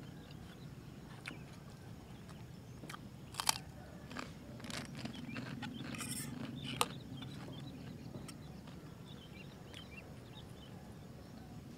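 Close-up eating sounds: crunchy chewing of a fried cracker, then a fork scraping and clinking in a metal camping pot of noodles. Two sharp clinks stand out, about three and a half and nearly seven seconds in.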